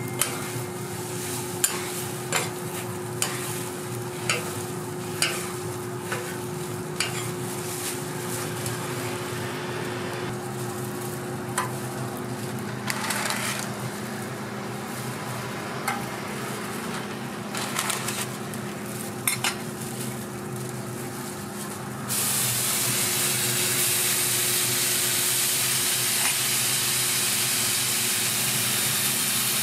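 A metal spatula scrapes and taps on a hot flat-top griddle over frying eggs, giving sharp clicks over a sizzle. About two-thirds of the way through, this gives way abruptly to a louder, steady sizzle of raw bacon strips frying on the griddle.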